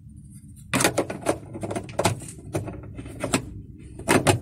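Plastic diffuser cover of a Wagon R's roof cabin light being handled and fitted onto its plastic housing: an irregular run of small clicks and taps starting about a second in.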